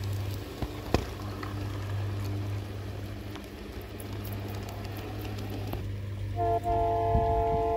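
G-scale model trains running on garden track with a low steady hum and a few clicks; about six seconds in, the approaching model diesel locomotive's sound unit blows its air horn, one long steady chord of several notes.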